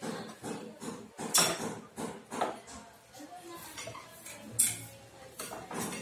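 Metal parts on a motorcycle's front wheel clinking and clattering as they are handled during a front wheel bearing job. There are a string of separate sharp clinks, the two loudest about a second and a half in and near the five-second mark.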